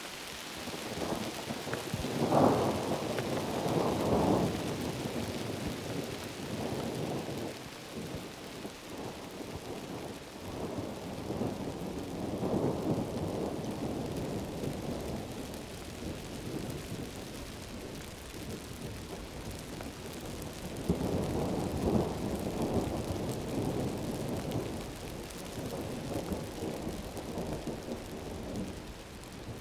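Heavy tropical rain falling steadily, with rolling thunder rumbling up and fading away three times: near the start, in the middle and about two-thirds through.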